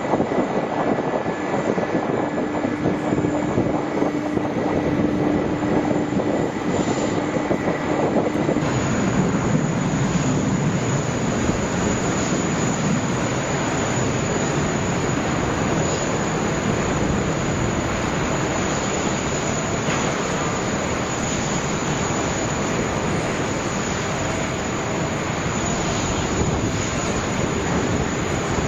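Jet airliner engines making a loud, steady rushing noise, with a faint steady whine over the first eight seconds. About eight seconds in, the sound turns deeper and fuller.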